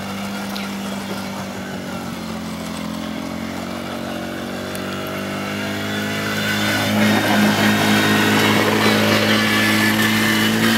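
Engine of a 50cc Polaris Outlaw youth ATV, governed to about 15–17 mph, running at a steady pitch as it rides. It grows louder about six seconds in as the quad comes close and passes by.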